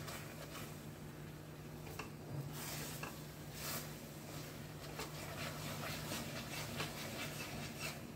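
A spatula stirring and scraping a thick grated-coconut caramel mixture around a steel pan: faint, uneven scraping strokes over a low steady hum.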